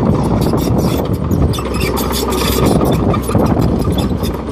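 Engine running steadily, with rapid clicking and rattling over its rumble.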